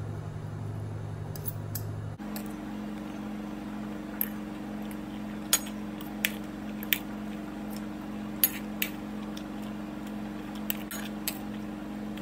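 Metal spoon and fork clinking against a ceramic plate while eating, about eight short sharp clinks spread through, over a steady low hum that shifts up in pitch about two seconds in.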